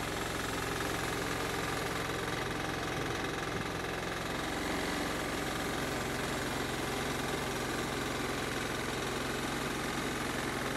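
The engine of a homemade bandsaw mill running steadily as the saw head moves along and cuts through a log.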